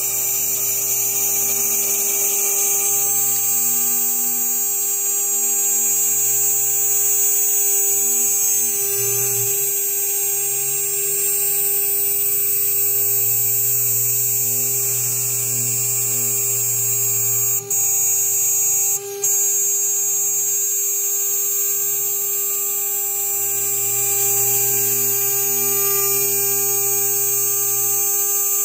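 CNC router spindle running at about 12,000 RPM while a 3 mm carbide end mill cuts half-inch polycarbonate: a steady machine hum and whine with a lower tone that rises and falls as the cut goes on. The sound drops out twice for an instant past the middle.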